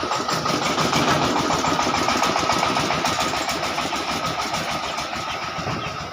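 Small engine of a corn sheller running steadily with a fast, even rattle, fading away over the last two seconds.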